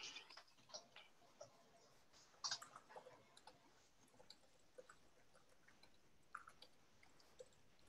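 Faint, irregular computer-keyboard typing clicks, heard over a video call.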